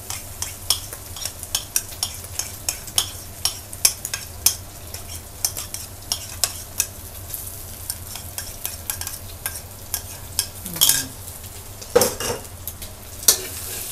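A metal spatula scrapes and taps against a wok as crispy pork belly and minced garlic are stir-fried. Under the many irregular clicks runs a steady sizzle of hot fat.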